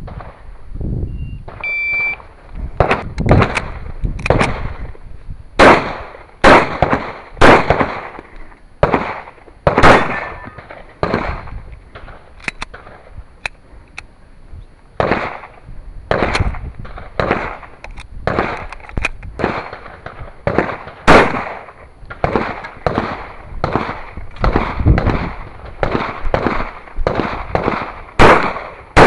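A shot timer beeps briefly about two seconds in to start the stage. Then comes a long course of pistol fire: dozens of shots in quick pairs and runs, broken by short pauses for movement or reloads.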